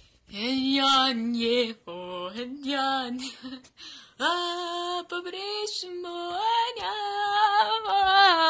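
A single voice singing long, wavering held notes without clear words, in several phrases with short breaks between them.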